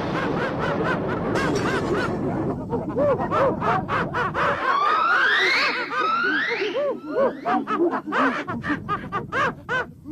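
Jungle animal sound effects: rapid, repeated chattering calls with a few long rising whistled calls about five seconds in.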